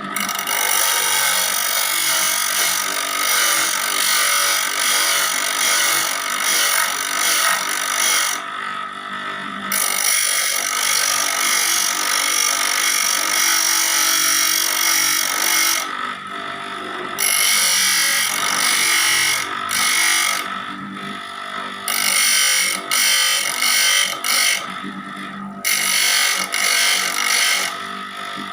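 Saw blade being sharpened with a power grinder: a steady high grinding in long runs of several seconds, stopping briefly a few times.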